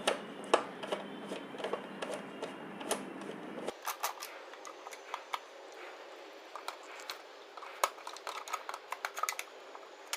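Screwdriver working tight screws out of a mixer grinder's motor housing: irregular small clicks, metal ticks and handling knocks.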